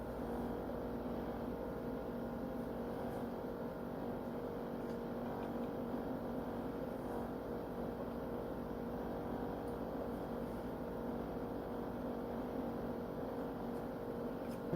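A steady electrical hum with a few faint ticks.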